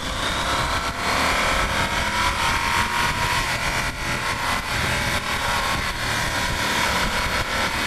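Yamaha Super Ténéré 1200's parallel-twin engine running at speed on the throttle, its note climbing slightly early on and then holding, under a heavy rush of wind noise.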